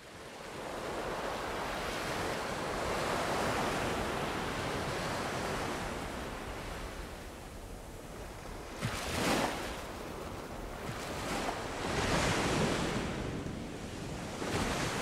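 Rushing, surf-like wash of waves, steady at first and then swelling three times in the second half.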